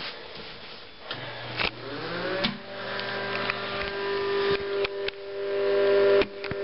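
Bathroom exhaust fan switched on: its motor hum rises in pitch for about a second and then holds steady, getting louder, with a few sharp clicks and knocks along the way.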